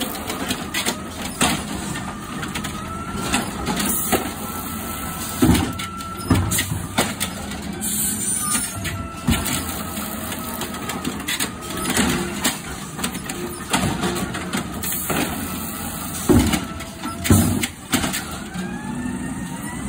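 Automated side-loader garbage truck running while its hydraulic arm lifts, shakes out and lowers a wheeled recycling cart: engine noise under a hydraulic whine that rises and falls, with repeated knocks and bangs from the cart and arm, the loudest about five seconds in and twice near the end.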